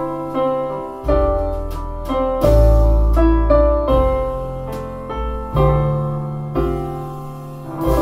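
Piano music with struck notes dying away over deep bass notes, played back through a pair of PMC Prodigy 1 bookshelf speakers and picked up by a microphone in the room.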